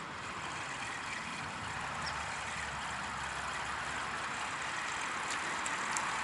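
Steady rush of flowing stream water, growing slightly louder, with a few faint ticks near the end.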